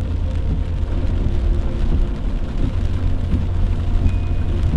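Driving on a wet road in rain, heard from inside the cab: a steady low rumble of engine and tyres under a hiss of rain and road spray.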